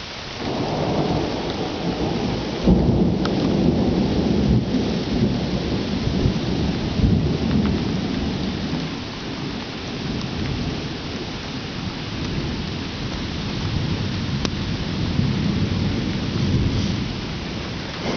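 Thunder from a lightning storm: a low rumble that breaks into a sharp crack about three seconds in, rolls on and eases, then swells again near the end, over the steady hiss of rain.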